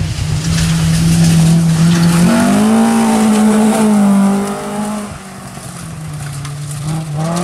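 Rally car engine running hard at high revs along a gravel stage. Its pitch steps up a little over two seconds in and drops back about five seconds in.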